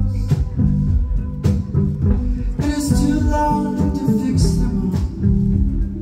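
Live band music: a low plucked bass line of quickly changing notes under a voice holding sung tones, with sharp percussive hits about once a second.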